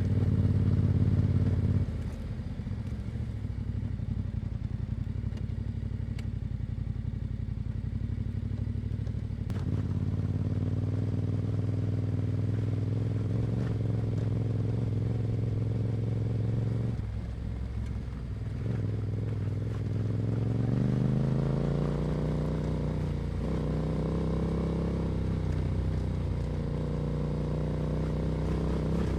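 Yamaha Ténéré 700's 689 cc parallel-twin engine running through an Akrapovic exhaust while ridden at a steady throttle. The rider eases off briefly about two seconds in and again around seventeen seconds. The engine note then rises as the bike accelerates and holds at a higher pitch.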